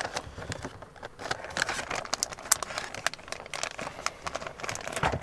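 Plastic bait packaging crinkling and rustling as it is handled and pulled out of a cardboard box, with many small irregular clicks and taps.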